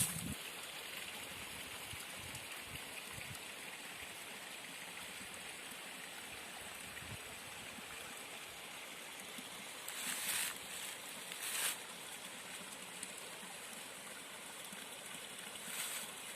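Steady rushing of a mountain stream, with a few brief rustles, such as steps in dry leaves, about ten seconds in, once more a second later and again near the end.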